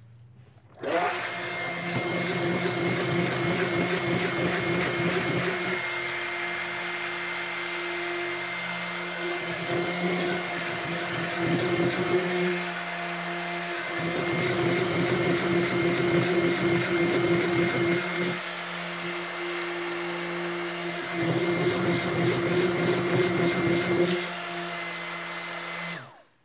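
Electric stick blender running in a tub of goat milk soap batter, mixing in green colorant. It starts about a second in and stops just before the end, its steady motor sound louder in stretches as it is worked through the batter.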